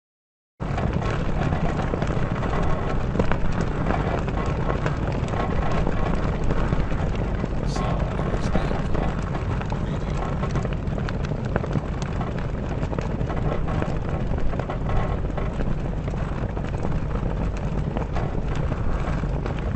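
Sails flapping in the wind with a rapid, continuous flutter, and a ship's mast creaking. The sound starts about half a second in.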